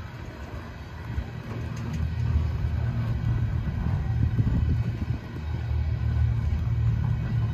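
Steel-wheeled covered hopper cars of a freight train rolling past, a low rumble of wheels on rail with scattered clicks, growing louder over the last few seconds.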